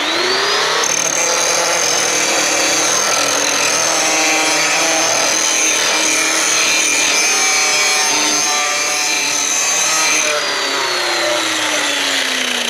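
Electric grinder sharpening a lawn mower blade in a sharpening jig: the motor whine climbs as it spins up, runs steady under a harsh grinding noise, then the grinder is switched off about ten seconds in and winds down with a falling whine.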